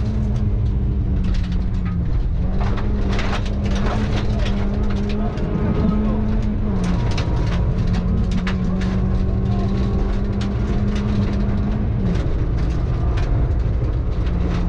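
Ford Fiesta rally car's engine heard from inside the cabin, running hard at high speed in a steady note that dips briefly in pitch a few times. Sharp clicks and pings of gravel striking the car's underside run through it.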